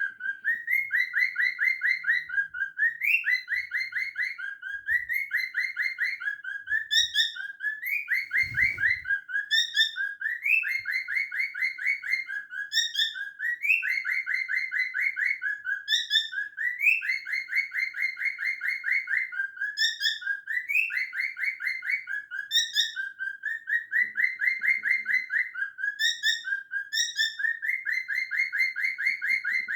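Pet parrot singing a loud repeating call: phrases of rapid trilled notes, each ending in a short higher rising note, over and over without a break.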